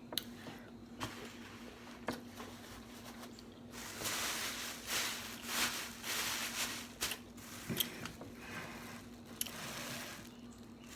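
Mukbang eating sounds, with food being chewed and handled. There are several sharp clicks and a louder noisy stretch in the middle, over a faint steady hum.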